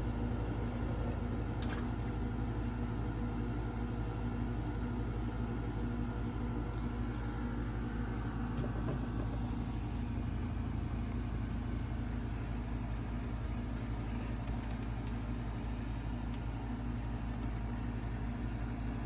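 A steady low mechanical drone with a constant pitched hum, unchanging throughout, with a few faint light ticks.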